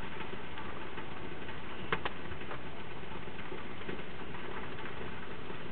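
Steady background noise with two short clicks about two seconds in.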